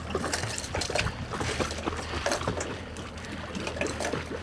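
Water sloshing and trickling against a small boat's hull, with irregular small splashes over a low steady hum.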